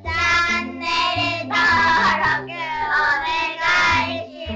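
Upbeat music with a high sung vocal line in short phrases over a bass line that steps from note to note.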